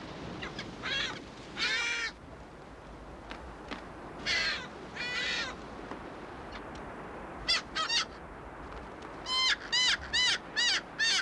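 Striated caracara giving harsh, grating calls while defending its chick from an approaching person: a few longer calls, then a quick run of short calls near the end.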